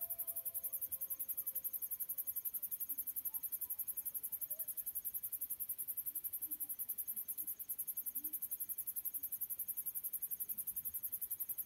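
Night insects chirping in a fast, even, high-pitched pulse throughout. Faint distant coyote howls glide and fade out in the first couple of seconds, followed by a few faint scattered yips.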